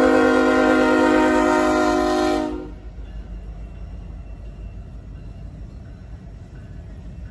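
Diesel locomotive air horn holding a steady chord, cutting off sharply about two and a half seconds in. The low rumble of the passing freight train's locomotives and cars goes on after it.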